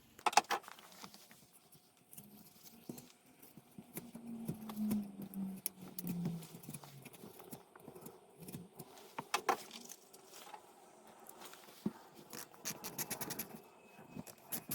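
Small metal hardware clicking and rattling as machine screws are fastened with lock nuts, with runs of quick clicks from a socket ratchet. About four seconds in, a low hum falls slowly in pitch for a few seconds.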